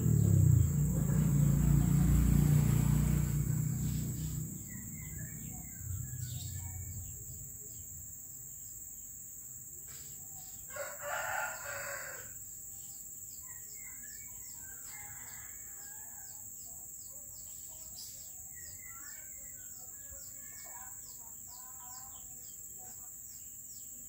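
Garden birdsong: soft chirps and twitters from small birds, and a rooster crowing once, briefly, about eleven seconds in. Behind them runs a fast, even high ticking and a steady high whine, and a low rumble fills the first four seconds.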